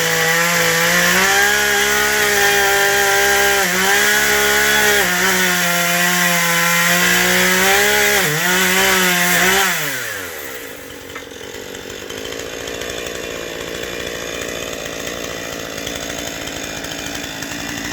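Chainsaw running at high revs while cutting through a tree branch, its pitch dipping now and then under load. About ten seconds in, the throttle is let off and the engine winds down to a quieter, steady idle.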